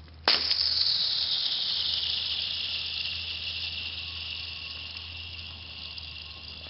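Thin sheet of lake ice ringing after a thrown object strikes and skids across it: a sudden high whine about a quarter second in that glides slowly down in pitch and fades over the next several seconds.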